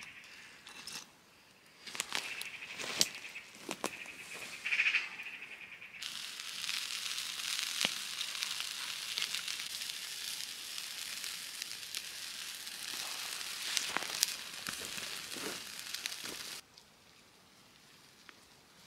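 Whole chicken roasting over glowing embers, sizzling and crackling: scattered pops and crackles at first, then from about six seconds in a steady hiss with sharp crackles that cuts off suddenly near the end.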